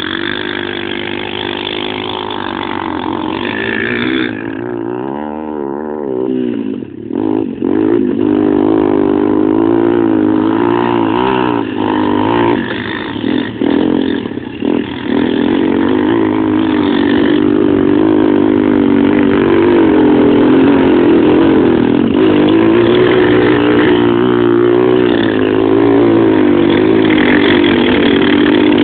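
Quad (ATV) engines running and revving under changing throttle, the engine pitch wavering up and down. The sound briefly dips several times in the first half, then holds steady and loud.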